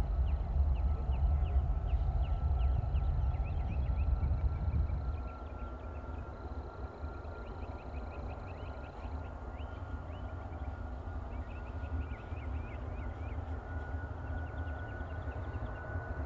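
Distant Boeing 777-200ER's Rolls-Royce Trent 800 turbofans at takeoff power during the takeoff roll: a low rumble under a steady engine whine that slowly rises in pitch. The rumble eases after about five seconds.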